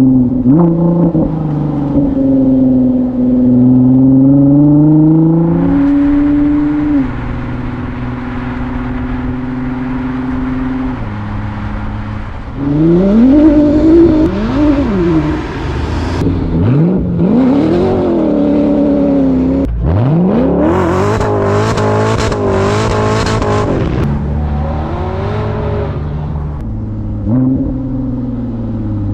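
Straight-piped exhausts of Ford GT supercharged V8 and twin-turbo V6 engines on the move, revs rising and falling through gear changes. Two hard pulls come around the middle, the second with a harsh, rasping exhaust note, before the revs settle to steadier cruising.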